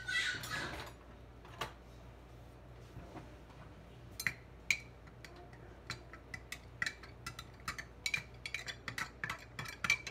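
A metal spoon stirring ginger tea in a glass mason jar, clinking against the glass: a few separate clinks at first, then rapid, quick clinking over the last few seconds.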